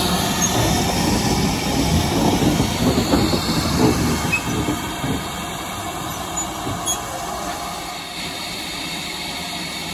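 GWR 5101-class 2-6-2 tank steam locomotive No. 4144 heard at close quarters: a noisy steam hiss and mechanical rumble, loud and uneven for about the first five seconds, then settling to a steadier, quieter level.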